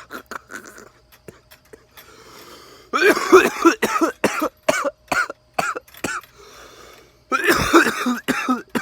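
A man coughing in two loud fits of many short coughs each, about three seconds in and again near the end, from inhaling vapour off a vape cartridge hit.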